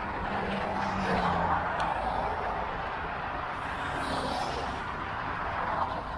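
Street traffic: motor vehicles passing, with a steady tyre-and-engine rush and one engine tone falling in pitch about a second in.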